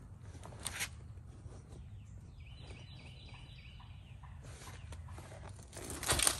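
A bird calling, a quick run of short repeated high notes lasting about a second, a couple of seconds in. Brief rustling of someone handling plants comes near the start and again near the end.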